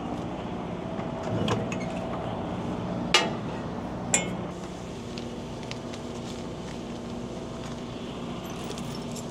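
Semi-truck's diesel engine idling steadily. Over it come two sharp metallic clinks about three and four seconds in as the trailer's air-line gladhands are handled.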